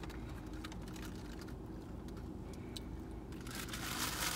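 Low steady hum of a car's running engine heard from inside the cabin, with scattered faint clicks and small handling noises.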